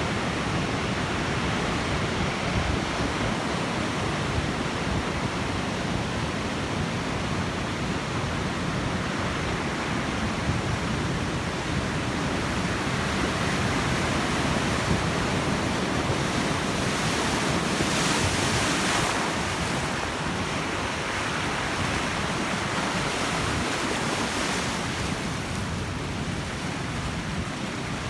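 Heavy storm surf from a typhoon-churned sea, breaking and washing continuously, with wind on the microphone. A louder surge of hissing spray comes about two-thirds of the way through.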